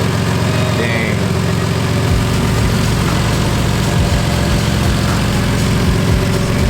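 A car engine idling steadily, a low hum that deepens about two seconds in.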